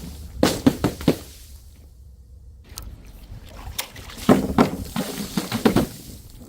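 Objects being crushed and broken, heard as two bursts of sharp cracks and crunches: one about half a second in lasting roughly a second, and a longer one from about four seconds in.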